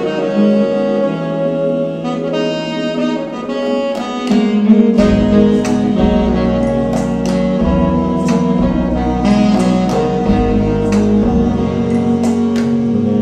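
Instrumental jazz played back on a hi-fi system through YG Acoustics Carmel 2 speakers: a sustained horn melody over plucked strings, with a low bass line coming in about five seconds in.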